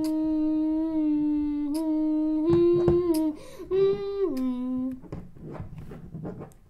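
A child's voice humming a wordless tune in a few long held notes, stepping up and then back down, which stops about five seconds in, leaving only faint scattered noises.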